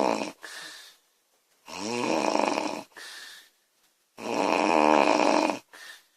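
A woman snoring loudly in a steady rhythm: two long snores, about two and a half seconds apart, each followed by a shorter, quieter sound.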